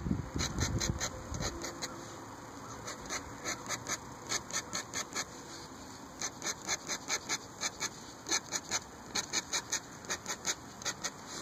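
Metal dip pen nib scratching across paper in quick short hatching strokes, about four strokes a second in runs with brief pauses between them.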